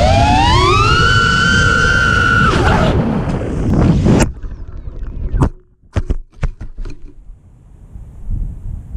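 Electric motors of a 5S FPV racing quadcopter (T-Motor F40 Pro V2 2600 KV) whining at full throttle, rising in pitch and then holding, with rushing air noise. About four seconds in, the motor sound cuts off abruptly and a few sharp knocks and clatters follow, which fits the failsafe the pilot thinks happened as he turned the quad around.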